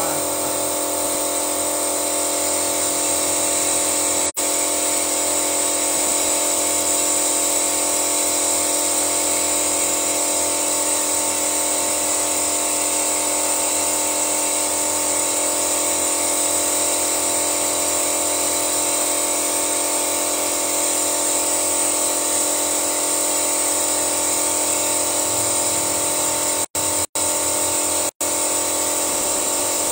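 Steady mechanical whine with a strong high hiss from the engine bay of a 2011 Toyota Yaris during an engine flush: the engine runs while flushing fluid is drawn from the hanging canister through the hoses into the engine.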